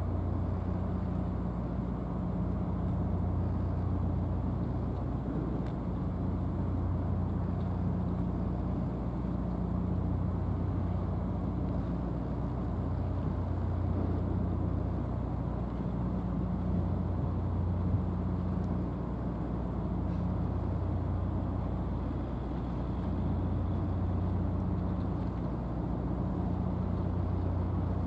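A low, steady engine drone whose hum swells and fades every two to four seconds, over a haze of harbour background noise. There is one short knock about two-thirds of the way through.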